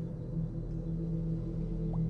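Low, steady drone of a horror film score: several held tones ringing together without a break, with a short rising blip just before the end.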